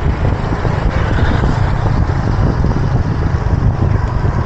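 Wind noise on the microphone of a small action camera while cycling: a loud, steady low rumble with no distinct events.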